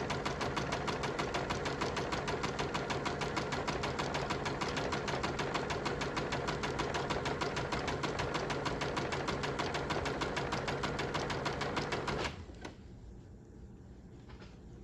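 Electric home sewing machine stitching steadily, its needle going in a fast even rhythm, then stopping abruptly about twelve seconds in.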